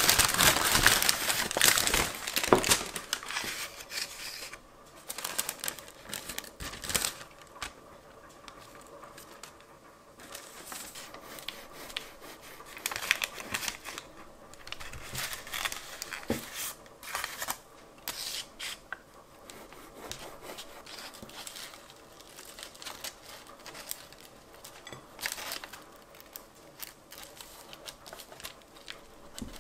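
Paper bakery bag crinkling and rustling as it is pulled open and peeled back from a pastry, loudest in the first few seconds. After that come scattered lighter rustles, scrapes and taps as a table knife cuts through the iced, cream-filled pastry on a plate.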